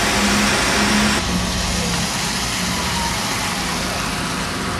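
A vehicle's engine running steadily with a low hum amid street traffic noise; the hiss drops away suddenly about a second in.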